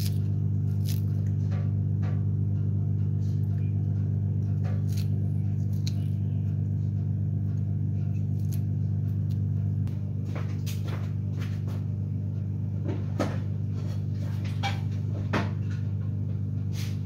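A steady low hum or drone runs throughout and dips slightly about ten seconds in. Scattered light clicks and taps sound over it, a few louder ones in the second half.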